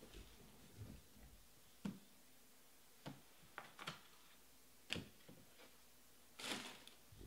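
Trading cards being handled on a tabletop: a few faint, scattered clicks and taps, then a short rustling swish near the end.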